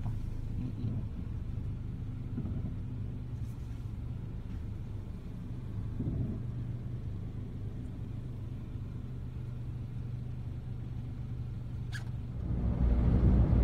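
Car engine idling, heard from inside the cabin while stopped at a light: a steady low hum. Near the end it gives way to a louder low rumble of the car under way.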